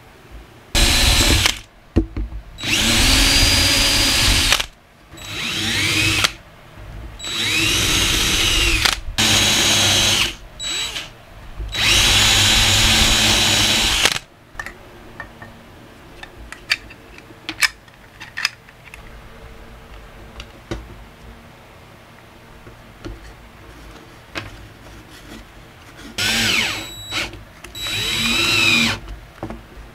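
Cordless drill running in five bursts, its motor whine rising and falling as it bores holes through a plastic plate. Then a quiet stretch of small handling clicks, and near the end two short runs of the drill driving screws.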